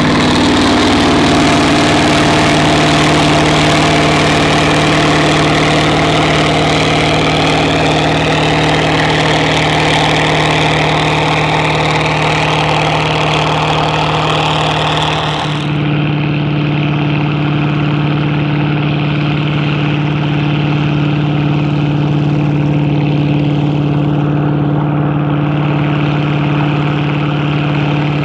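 International 1468 tractor's IH DV550 V8 engine running steadily under load while pulling a six-bottom moldboard plow. About halfway through the sound changes abruptly, becoming duller with a stronger low hum.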